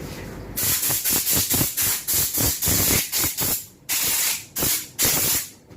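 Repeated short hissing blasts of a pressurized spray, starting about half a second in: about a dozen quick bursts, then three longer ones near the end.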